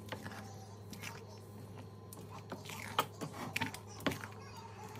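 A spoon stirring a pot of binignit, with a few sharp knocks and clicks of the utensil against the pot, the clearest about three and four seconds in, over a steady low hum.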